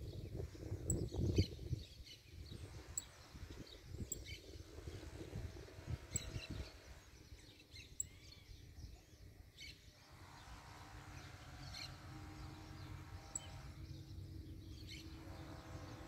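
Small songbirds giving scattered short chirps over faint outdoor background noise, with a low rumble in the first couple of seconds. From about ten seconds in, a faint steady hum joins.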